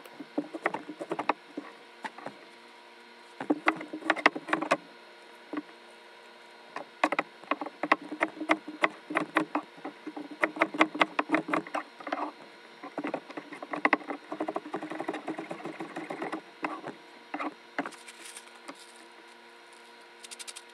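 Chef's knife chopping vegetables on a plastic cutting board: runs of quick sharp knocks with short pauses, mixed with lighter clatter as the pieces are handled.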